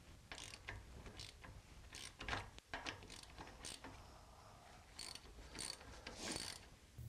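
Socket ratchet clicking faintly in short, irregular runs as the already-slackened drive-flange bolts on a Land Rover rear hub are wound out.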